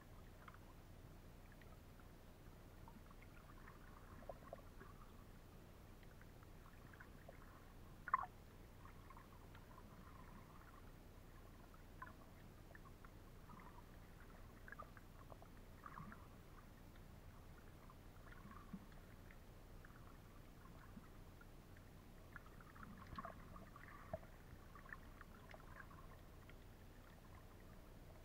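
Near silence underwater, with scattered faint clicks and crackles and one sharper click about eight seconds in.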